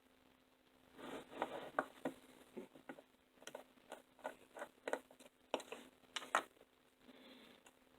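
Irregular small clicks and taps of model locomotive parts being handled and fitted together during reassembly, a dozen or so over about five seconds.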